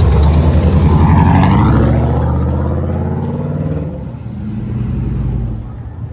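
A car's engine rumbling as the car drives slowly past close by, its pitch falling and the sound fading over the next few seconds.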